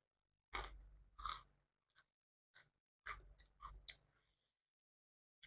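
A person chewing a mouthful of food close to the microphone, in two spells of chewing with a short pause between, then a stop about four seconds in.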